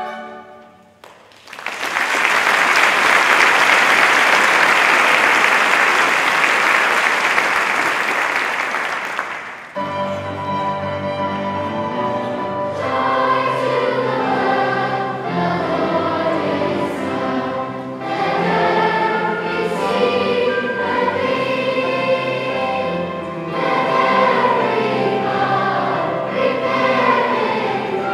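A choral piece ends in the first second, and the audience claps for about eight seconds. Then a large choir with piano and instruments starts singing again, carrying on to the end.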